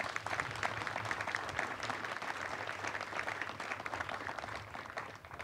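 Audience applauding, many hands clapping together. The clapping thins out near the end.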